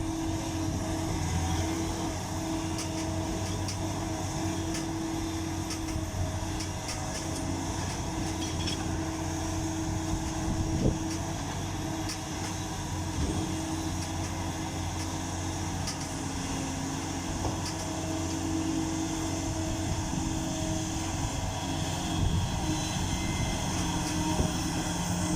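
Caterpillar 6020B hydraulic mining shovel's large diesel engine running steadily, with a few short knocks.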